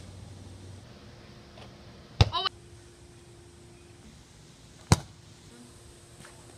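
Three sharp knocks a few seconds apart: one right at the start, the loudest about two seconds in with a brief rattle after it, and another about five seconds in.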